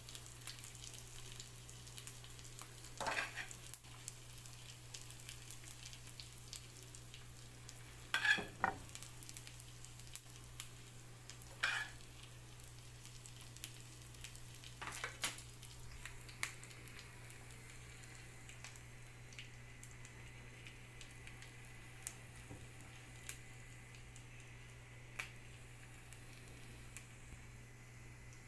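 Faint crackling sizzle of hot sauced food over a steady low hum. A utensil scrapes four times in the first half.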